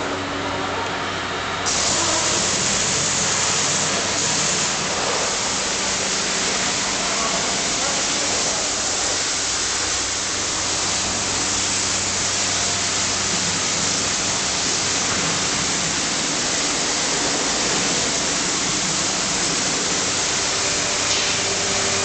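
Pressure washer spraying water onto a car: a steady hiss of spray that comes on louder about two seconds in, over a low steady hum.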